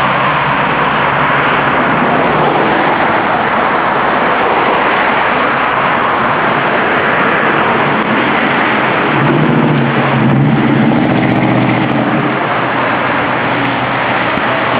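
Steady road traffic going by, with a heavier vehicle's engine passing about nine to eleven seconds in.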